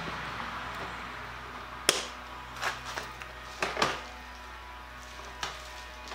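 Irregular sharp clicks and knocks as bar clamps and a trigger clamp are set on pine shutter slats, about half a dozen, the loudest about two seconds in, over a faint steady hum.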